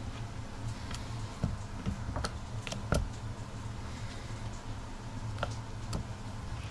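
Raw potato slices dropped one by one into a plastic bowl of batter: a few short, soft taps, the sharpest about three seconds in, over a steady low hum.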